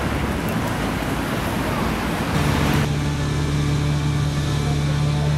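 City street traffic noise. About halfway through it gives way to a steady low hum with a few held tones underneath quieter street noise.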